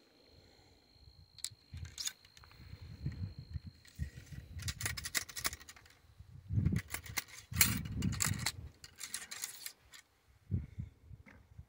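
Ramrod scraping and knocking in the barrel of a .50 caliber Traditions Hawken Woodsman muzzleloader as a patched round ball is rammed down onto the black powder charge: a run of scrapes and knocks, heaviest in the second half.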